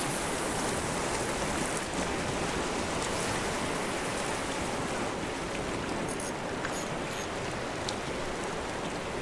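Steady rushing wash of sea surf on rocks, with a few faint high clicks about six to seven seconds in.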